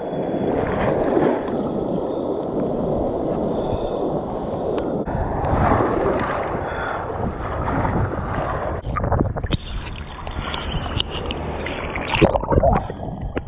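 Wind buffeting the microphone over ocean surf and water washing around, with a scatter of short knocks and clicks in the last few seconds.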